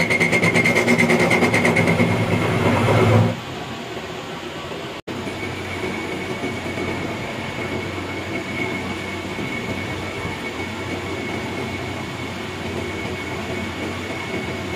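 A workshop machine running steadily with a high whine. It is louder and fluttering for about the first three seconds, then drops and runs on more quietly after a brief break.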